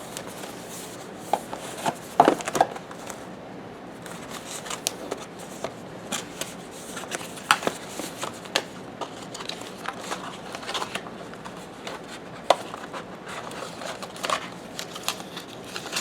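Cardboard box and packaging of a doorbell camera being opened and handled: scattered clicks, taps and rustles, with a few sharper knocks.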